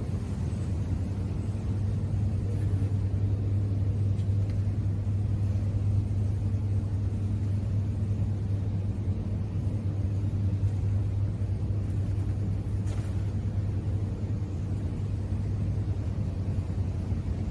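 Steady low mechanical hum, like a motor or engine running continuously at an even speed, with a faint click about thirteen seconds in.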